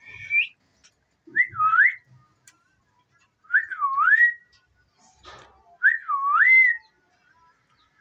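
Whistling: a short rising note, then the same clear whistled phrase, dipping in pitch and sliding back up, repeated about every two seconds.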